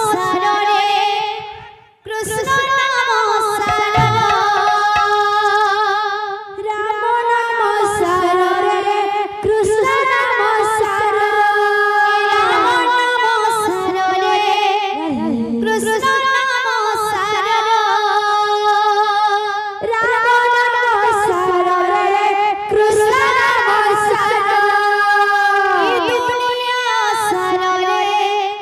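A woman singing an Odia devotional kirtan song with strong vibrato into a microphone, over a barrel drum. The singing breaks off briefly about two seconds in.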